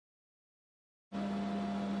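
Silence, then about a second in a steady machine hum starts abruptly: a constant low pitch with a fainter higher tone over an even hiss.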